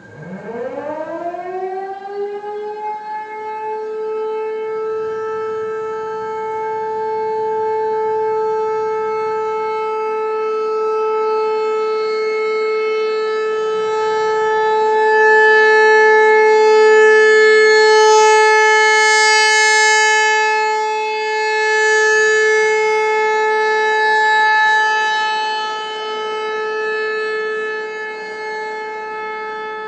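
American Signal T-128 outdoor warning siren sounding in a test: it winds up from a low pitch over the first few seconds to one steady high tone. Its loudness then swells and fades slowly as the rotating head sweeps past.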